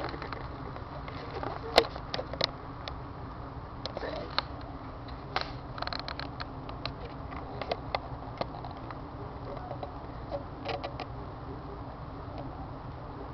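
Model train running on a layout: a steady low hum with scattered light clicks and ticks, the sharpest click about two seconds in.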